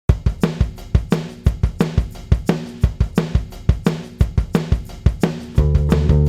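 Background music: a drum-kit beat starts suddenly after silence and plays a steady rhythm of kick, snare and cymbal hits. Sustained bass and other pitched instruments come in near the end.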